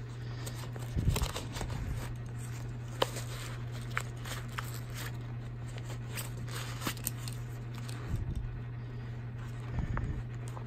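Rustling and crinkling of a HydraPak 3-litre collapsible water reservoir as it is pulled out of its storage pouch and unfolded by hand, with scattered small clicks, over a steady low hum.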